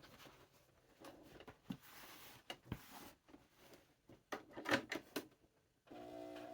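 Scattered light clicks and knocks of handling at a sewing machine, with a louder cluster of clicks a little past the middle; near the end the sewing machine's motor starts and runs with a steady hum.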